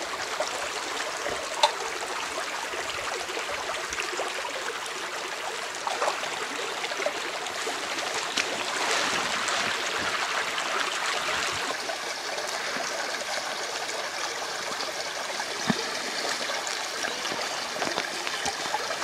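Small shallow brook running and babbling over stones, a steady rush of water with a few brief knocks.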